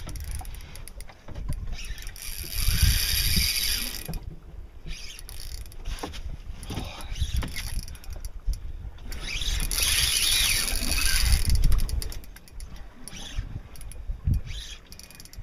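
Spinning reel cranked under the load of a hooked fish, its gears and drag ticking in quick clicks, with two longer stretches of hiss.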